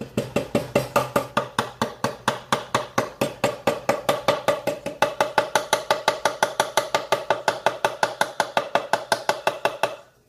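Rapid, even knocking of a utensil against a bowl while mashed potatoes are being mixed, about five strokes a second, each with a slight ring, stopping suddenly near the end.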